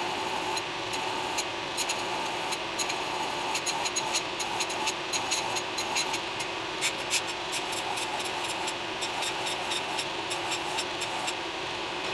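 Belt grinder running with an 80-grit belt as small pieces of steel are ground against the contact wheel to take off mill scale: a steady grinding hum broken by frequent sharp ticks.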